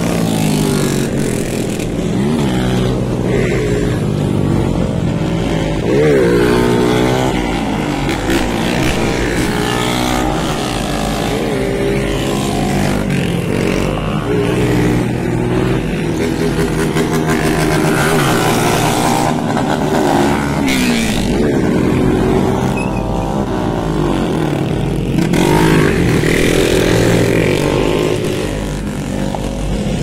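Several street motorcycles' engines revving up and down over and over as the bikes pass, the riders pulling wheelies. The pitch rises and falls repeatedly, with more than one engine heard at once.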